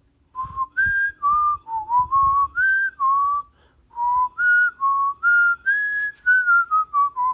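A person whistling a tune, a string of clear notes stepping up and down and ending in a short falling run, with a few faint knocks of handling underneath.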